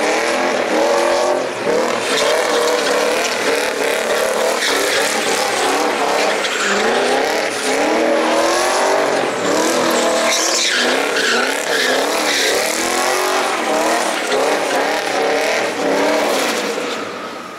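Car engine revving hard, its pitch rising and falling again and again as the car is thrown through a drift, with tyres screeching on tarmac throughout.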